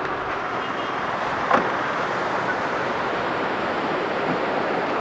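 Sea surf breaking on a beach, a steady rush of waves, with wind buffeting the microphone. One short, sharp click about one and a half seconds in.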